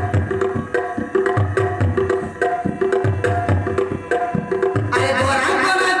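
Folk dance music with a steady, repeating drum beat under a pitched melody; about five seconds in, the music suddenly becomes fuller and brighter.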